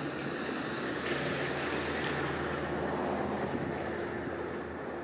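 Box truck's engine running close by, a steady low hum with tyre and road noise. It swells about a second in and eases off near the end.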